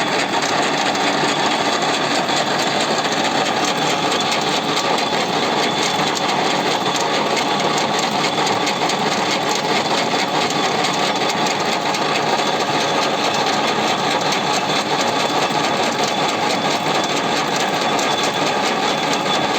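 Gear hobbing machine running steadily: a continuous, even mechanical whir with no change in level.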